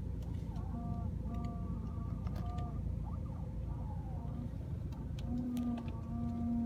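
BMW E90 steering creaking while driving: repeated short squeaky creaks that bend in pitch, over a low road and engine rumble, with a lower drawn-out tone coming in about five seconds in. The creak comes on after 20–30 minutes of driving and is felt as a kick in the steering wheel.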